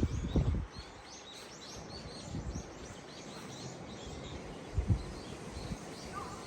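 Strong wind buffeting the microphone with a loud low rumble, dropping away within the first second. Then a small bird chirps over and over in short, high notes, while a couple of brief gusts bump the microphone.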